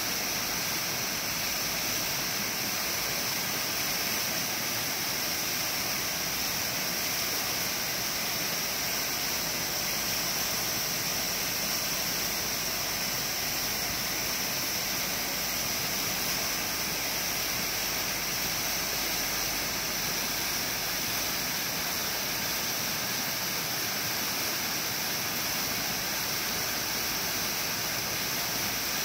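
Small waterfall cascading down rock ledges, a steady rush and splash of falling water.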